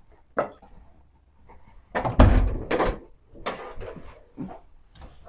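Zastava 101 car door shut with a heavy thud about two seconds in, among a few softer knocks and rustles.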